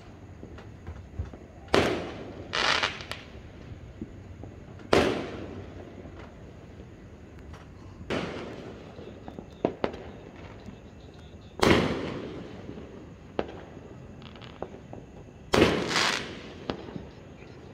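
Aerial fireworks shells bursting, a loud sharp bang every two to four seconds with a fading echo after each, and a few smaller pops in between.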